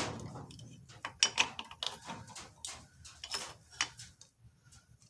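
Scattered light metallic clicks and taps as a pilot bearing puller tool is handled and worked into place against the pilot bearing.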